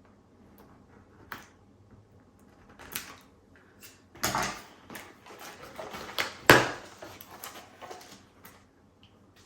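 Cardboard retail box being opened by hand: light handling clicks and rustles, a louder scrape a little before the middle, and a sharp snap shortly after.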